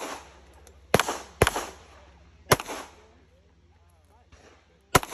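Glock 21 .45 ACP pistol firing four shots, each with a short echo: two about half a second apart about a second in, one at about two and a half seconds, and one near the end.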